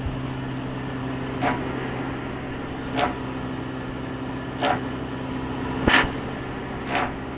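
A steady low motor hum, with five short, sharp sounds over it, roughly one to one and a half seconds apart; the fourth is the loudest.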